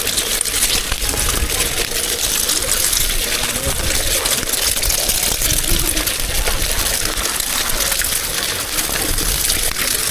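Steady crackling sizzle of hot oil frying food on a street-stall griddle.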